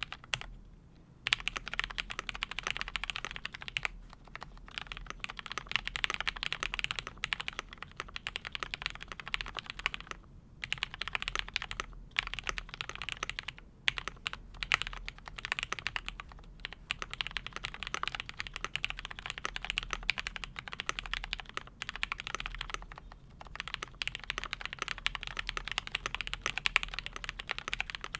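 Fast typing on a Keychron V1 mechanical keyboard with lubed Cherry MX Hyperglide Black linear switches and a steel plate: a dense run of keystroke clacks with brief pauses every few seconds.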